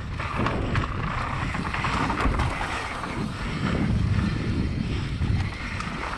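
Mountain bike descending a dirt trail at speed: wind buffeting the camera microphone and tyres rolling over dirt, with scattered short rattles and knocks from the bike.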